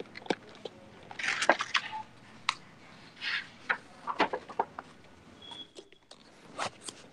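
Scattered light clicks and taps, with a few short soft rustles in between.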